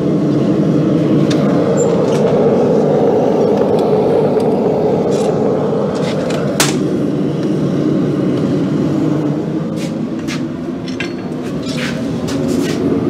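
A lit forge running with a steady rushing noise, broken by scattered light metal clinks of tongs and steel, a few more near the end as the glowing bar is brought out.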